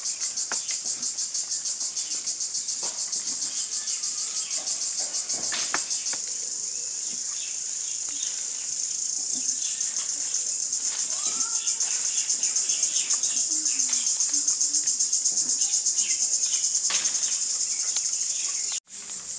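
Insects singing in a loud, high-pitched drone that pulses rapidly, several times a second, with a brief dropout near the end. Faint bird chirps come through underneath.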